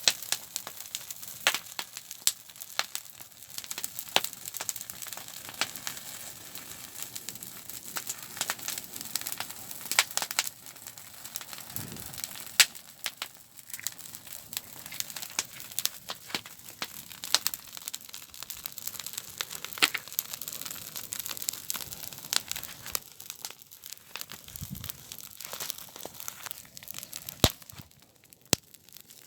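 Campfire crackling, with frequent irregular sharp pops and snaps over a steady hiss.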